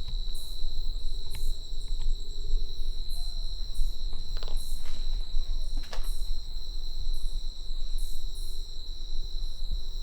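Night insects, crickets or similar, calling steadily: one continuous high trill with sharper, higher chirps repeating about once or twice a second, over a low rumble.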